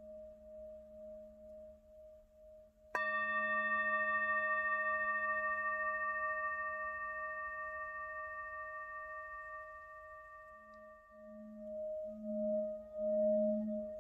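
Singing bowl ringing: a low, wavering hum of bowl tones, then one sharp strike about three seconds in that rings out and slowly fades, with the pulsing low hum swelling again near the end.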